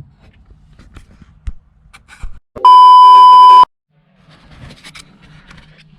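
A loud, steady, single-pitched bleep tone lasting about a second, of the kind dubbed over a sworn word. Around it are faint knocks and clatter from work on the brake pedal switch bracket.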